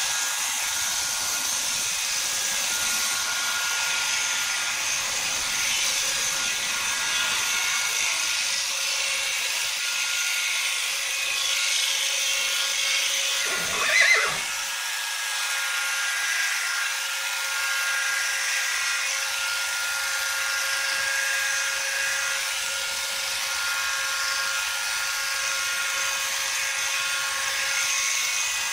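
Electric horse clippers running steadily with a constant buzzing whine as they cut through a pony's coat. About halfway through, a horse whinnies once, briefly, the loudest sound.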